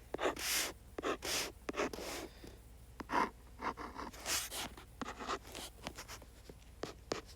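Writing instrument scratching across a paper worksheet in a run of short, irregular strokes while plotting points and drawing a line on a graph.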